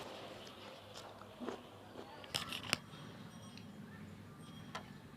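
Close-up eating sounds of chicken curry and fish bhuna with rice: chewing, with scattered sharp mouth clicks and smacks, the strongest a quick cluster about halfway through.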